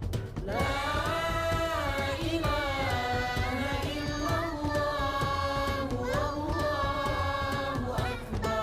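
Melodic singing with long, drawn-out notes that slide up and down in pitch, over a steady low rumble.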